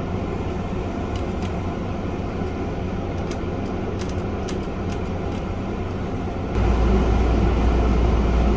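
Steady fan-like hum of room background noise, with a few faint light clicks from small drive parts being handled. About two-thirds of the way through, the low rumble abruptly gets louder.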